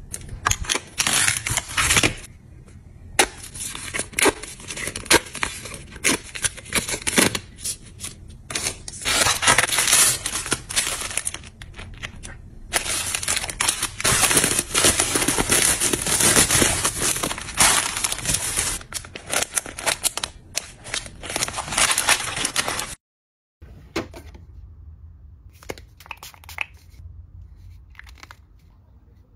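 Hands handling plastic and paper skincare packaging, with a plastic-wrapped pack of lotion tissues among it: repeated rustling and crackling bursts with sharp clicks, one long stretch of continuous crinkling in the middle. After a brief dropout near the end, quieter light taps of a plastic bottle being handled.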